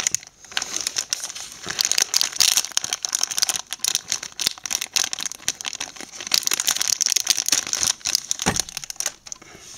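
Clear plastic packaging bag crinkling and crackling in quick, irregular bursts as it is opened and a silicone phone case is pulled out of it; the crinkling dies down shortly before the end.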